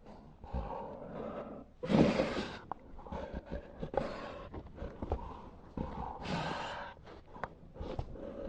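Bulldog breathing heavily and snorting, with a rough, noisy breath every second or two. The loudest comes about two seconds in, and another strong one follows at about six and a half seconds.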